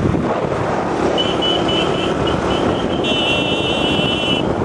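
Motorcycle engine and rushing wind noise from riding along at speed. A high wavering tone sounds over it from about a second in until near the end.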